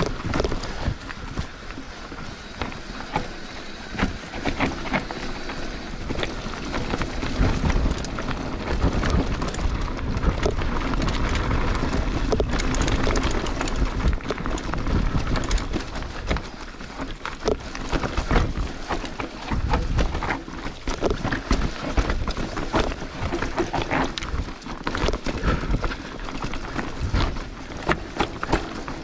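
Mountain bike rolling down a dry, rocky forest singletrack: tyres crunching over leaves, dirt and stones, with the bike rattling and knocking over bumps. A constant rough noise with frequent sharp knocks and a low rumble.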